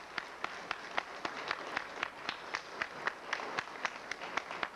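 Audience clapping for a graduate whose name has just been called, with the separate claps of a fairly small crowd distinct and keeping on steadily.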